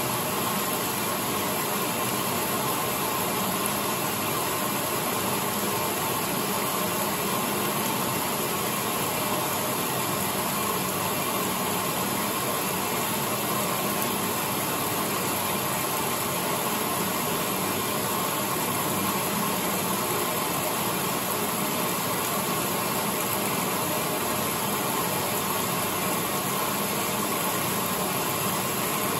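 Late-1970s Maytag A806 top-loading washer running with a large load of sheets: a steady, even machine noise with a faint hum and no clear beat.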